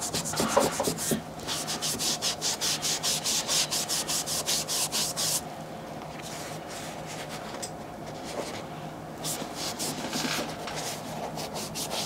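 Quick, rhythmic scrubbing strokes of a small cleaning block on the quilted fabric upper of a slip-on shoe, about five strokes a second. The scrubbing breaks off about five seconds in, and after that there are only a few fainter, scattered rubbing and handling sounds.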